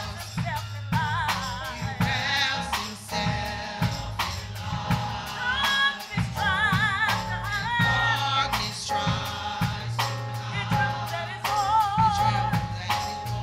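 Gospel choir singing with band accompaniment: voices holding long wavering notes over a steady bass and regular drum-kit beats.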